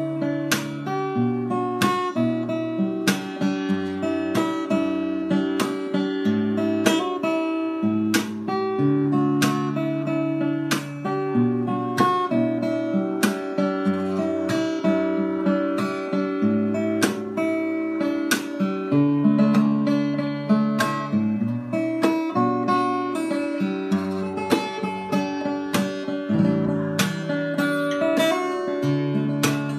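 Davis JG38 cutaway acoustic guitar played solo: chords strummed in a steady rhythm, with notes ringing on between the strokes as the chords change.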